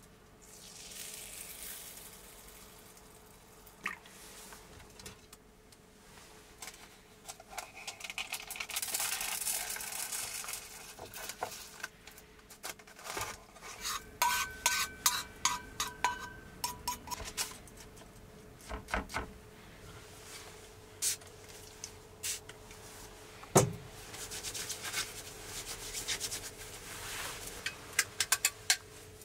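Rice being washed in a stainless steel cup: water poured in from a plastic bottle, then the grains stirred with a utensil that clinks rapidly against the metal cup, ringing, for a few seconds midway. A single knock comes later, and more stirring and clinking near the end.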